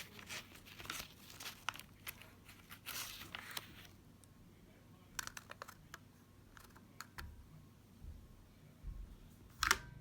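Sheets of paper rustling and crinkling as they are handled, then scattered small clicks from a plastic staple-free stapler, with a sharper click near the end.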